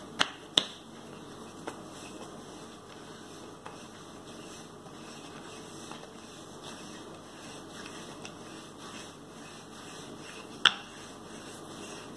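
Wooden rolling pin rolling pastry dough across a stone countertop, a soft steady rolling noise. Two sharp knocks come close together near the start and one more near the end.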